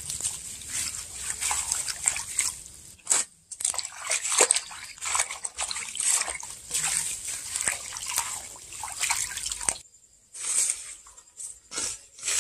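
Water sloshing and splashing in a metal basin as a hand swishes and rubs leaves to rinse them, in uneven bursts with a couple of short pauses.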